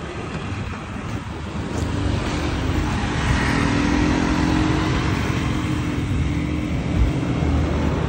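Road traffic of cars and motorbikes on a busy street, a steady low rumble that grows louder about two seconds in as a vehicle's engine hum comes by and holds for a few seconds.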